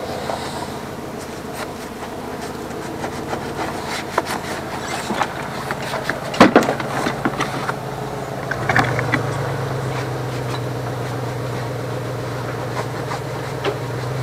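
Tools and a rag being handled on a wooden workbench: scattered clicks, knocks and rubbing, the loudest knock about six and a half seconds in. Underneath runs a steady low hum that gets louder about nine seconds in.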